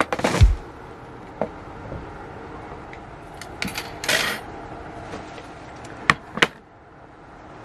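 Metal cookware and utensils being handled: a few sharp clinks and knocks, the loudest right at the start with a dull thump, two close together near the end, and a short rustle about four seconds in.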